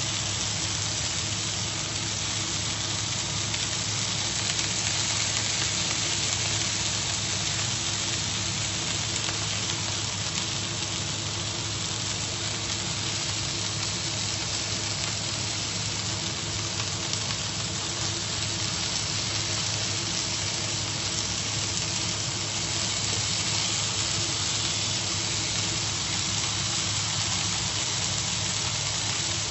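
Cubes of beef steak sizzling steadily as they sear in a nonstick frying pan, with a steady low hum underneath.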